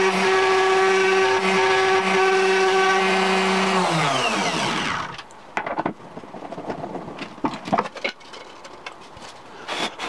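Electric wood router mounted above a table, running steadily with a high whine. About four seconds in it is switched off and winds down, its pitch falling away over about a second. After that come scattered light knocks and taps.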